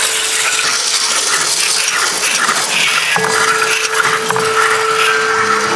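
Electric model train set on its track loop triggering motor-driven music-box movements and other musical toys through reed switches: a loud, dense clatter of metallic tinkling and jingling. A steady hum comes in a little past halfway.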